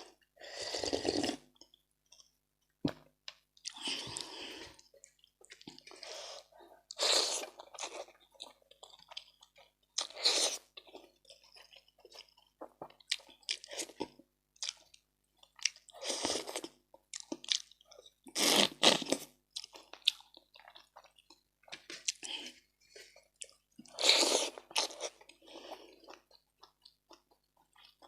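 Close-miked eating of a rice meal with fish head soup: wet chewing and crunching in irregular bursts with short quiet gaps between.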